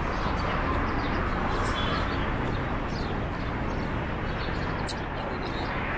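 Steady outdoor background noise with a low rumble, like distant city traffic, and a few faint short high ticks.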